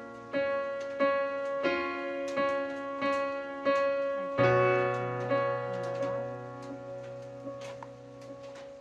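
Background piano music: chords struck roughly every half second to second, each dying away, then one long chord held and fading through the second half.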